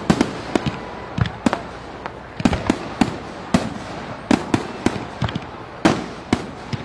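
Fireworks going off: an irregular string of sharp bangs and crackles, several a second.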